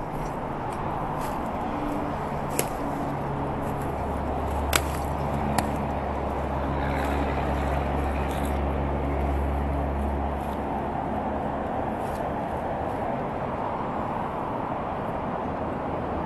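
Steady outdoor background rumble, with a deeper hum swelling for several seconds in the middle. Three sharp clicks sound in the first six seconds.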